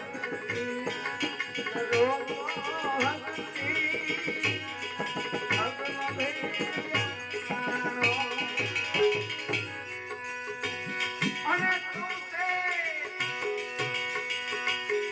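Gujarati devotional bhajan music: tabla drumming a steady rhythm under a wavering, ornamented melodic line, with held accompanying tones.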